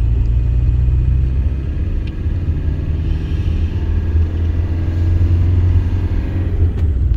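Peugeot Boxer 2.8 HDi four-cylinder diesel van on the move, a steady low engine and road rumble, with a change in the engine note about a second and a half in.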